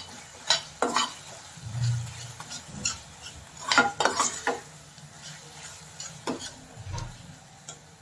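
A steel ladle stirring and scraping a thick onion-tomato masala, just mixed with ginger-garlic paste, in a stainless steel pan, with irregular clinks and scrapes against the metal and a cluster of them about four seconds in. A light frying sizzle sits underneath.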